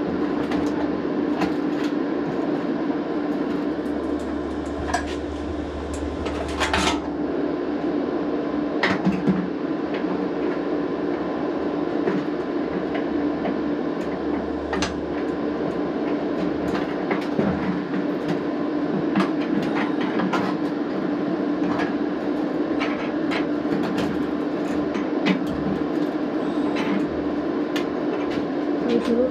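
Steel G-clamps clinking and knocking against sheet metal as they are positioned and screwed down on a patch, a scatter of short sharp metallic clicks over a steady machine hum.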